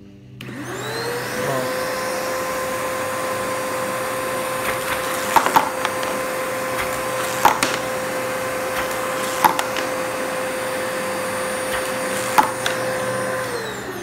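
Electrolux HidroVac A10 wet/dry shop vacuum, refitted with a motor not made for it, switched on and spinning up to a steady whine with strong suction. Glass marbles clack sharply through the wand several times as it sucks them up. It is switched off near the end and its pitch winds down.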